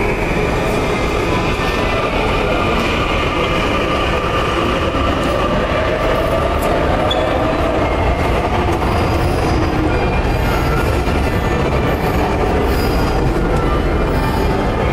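Metro train running through the station: a steady loud rumble with a whine that rises slowly in pitch around the middle.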